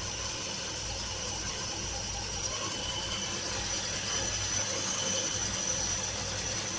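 Car engine idling steadily, with a steady high whine over the running.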